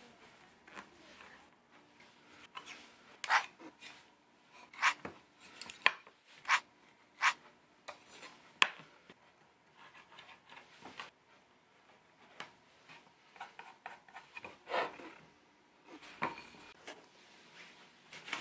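Irregular sharp clicks and knocks of wooden boards and marking tools (a steel square and a marking gauge) being handled and set down on a workbench, with quieter rubbing and pencil scratching between them.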